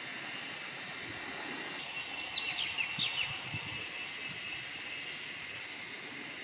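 Forest ambience: a steady high drone of insects, with a quick run of about seven high chirps, each falling in pitch, about two to three seconds in.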